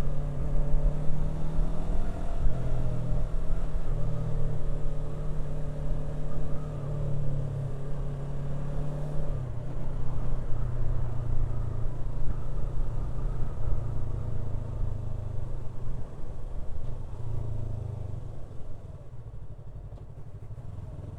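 Yamaha R3's 321 cc parallel-twin engine running while the motorcycle is ridden in traffic, its note holding steady for stretches and shifting in pitch a few times, over low wind rumble; the engine eases off near the end.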